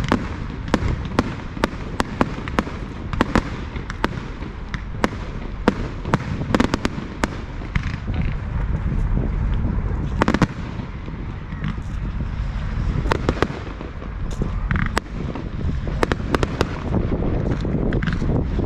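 Aerial fireworks display: a rapid, irregular string of bangs and crackles from shells bursting overhead, over a steady low rumble.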